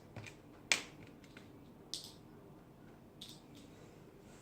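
A few light, scattered clicks and taps of small plastic toy pieces being handled, the sharpest about three quarters of a second in.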